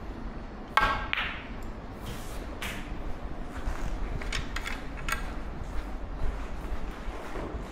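Snooker balls clicking: one sharp, ringing click about a second in, the loudest, then several lighter clicks and knocks over the next few seconds, over a steady low room hum.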